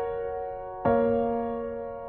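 Background music: slow, soft piano chords, a new chord struck about a second in, each left to ring and die away.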